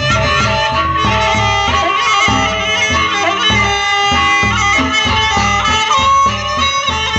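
Lombok gendang beleq ensemble playing: a wind melody on suling flute over large barrel drums beaten in a steady pulse, with cymbals and small gongs.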